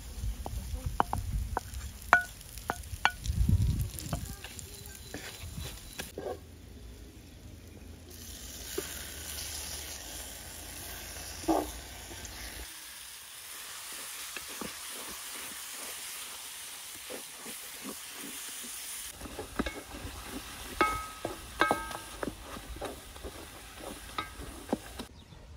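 Food sizzling as it fries in a metal pot over a wood fire, while wooden spoons stir it and knock against the pot; the sharp knocks come in clusters near the start and near the end.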